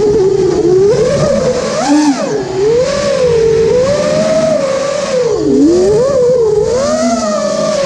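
Brushless motors and propellers of a 5-inch FPV racing quadcopter whining, heard from its onboard camera, the pitch swooping up and down again and again as the throttle is worked through turns, with a dip about five and a half seconds in.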